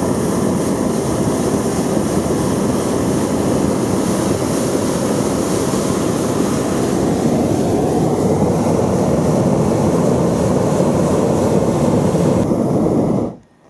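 Hot-air balloon's propane burner firing, a loud steady blast that cuts off suddenly near the end.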